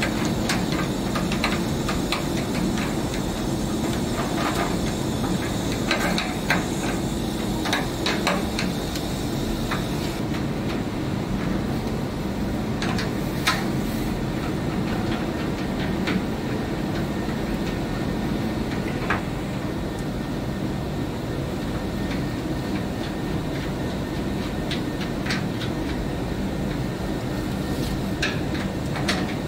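Steady machinery hum and noise in a workshop, with scattered light metallic clicks and knocks as the diffusion pump's core is handled and seated back in the pump body. The clicks come thickest in the first several seconds and again about halfway through.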